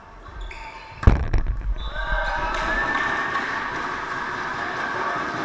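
A volleyball spiked hard, a single loud smack about a second in that rings through the hall, followed by players shouting and cheering after winning the point.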